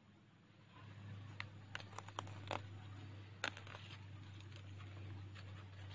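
Pechay (bok choy) being broken off by hand at the base of the stalks: a handful of short, sharp snaps and rustles of crisp stalks and leaves, over a steady low hum.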